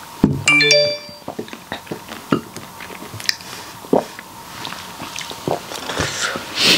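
A short rising run of ringing tones just after the start, then scattered small clicks and crunches of someone chewing food with their mouth close to the microphone.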